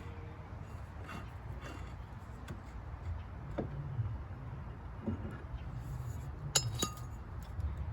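Light metallic clinks and taps as an EZGO ST350 golf cart's rear hub drum is worked onto the axle over the brake shoes, with two sharper clinks about six and a half to seven seconds in. A low steady hum runs underneath.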